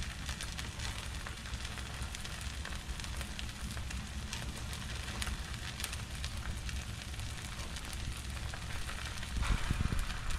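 Batter-coated perilla-leaf pancake frying in oil in a frying pan: a steady sizzle with fine crackling, growing louder near the end.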